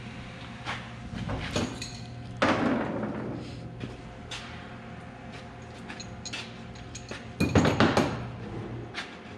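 Metal clanks and clicks of tools on the exhaust pipes and clamps as the clamps are tightened down, with two louder clattering bursts about two and a half and seven and a half seconds in, over a steady low hum.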